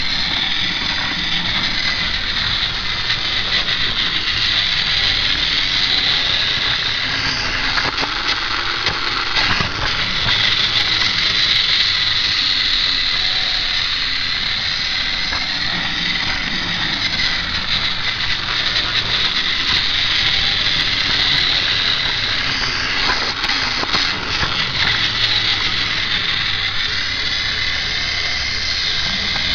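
Battery-powered Tomy James toy train running on plastic track: its small electric motor and gears whir steadily with a high whine.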